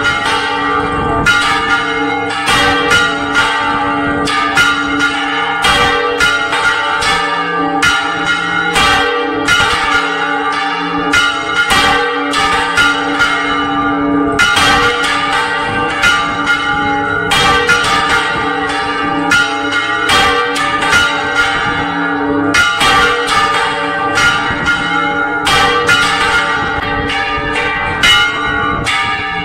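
Church bells hung on wooden counterweighted headstocks being swung full circle by hand in the Spanish volteo style, several at once. Their clappers strike over and over in a loud, dense, overlapping peal of many bell tones with no pause.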